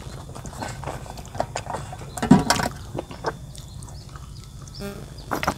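Mouth and handling noises of a person eating and drinking: scattered clicks and smacks, a louder thump about two seconds in, then quieter sips from a plastic water bottle.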